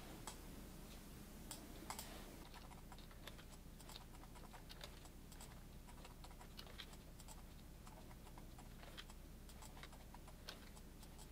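Faint, irregular clicks of computer keyboard keys and a mouse, over a low steady hum.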